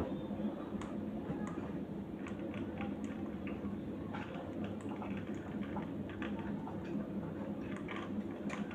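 Irregular small clicks and ticks from caged pet birds moving and pecking about, over a steady low hum.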